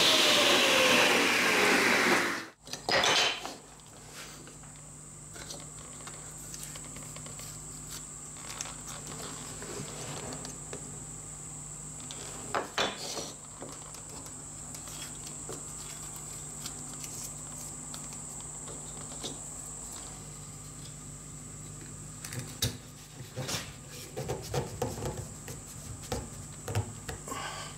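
A power saw running, its pitch falling steadily, until it stops abruptly about two and a half seconds in. After that come the light clicks and knocks of finger-jointed wooden pieces being handled and pushed together, over a steady low hum, with the knocks more frequent near the end.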